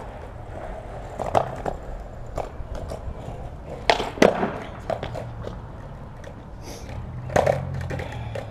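Skateboard wheels rolling on concrete with a steady low rumble, broken by a few knocks. About four seconds in, a sharp tail pop is followed at once by the loudest clack of the board coming down, and there is another hard impact of the board about seven seconds in.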